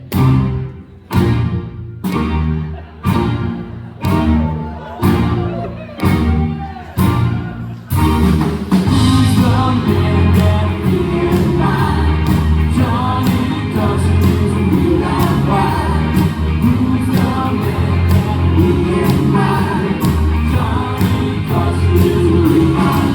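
Live pop-rock band playing: a chord is struck about once a second for roughly the first eight seconds, then the full band comes in with drums, bass and singing voices.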